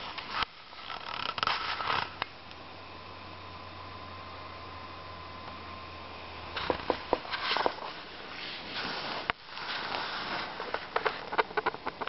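Handheld camera handling noise: rustling and scattered sharp clicks and knocks, with a quieter steady stretch in the middle holding a low hum and a faint thin whine.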